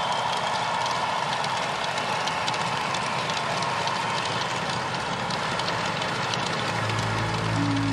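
Large arena crowd applauding and cheering steadily. A low steady hum comes in near the end.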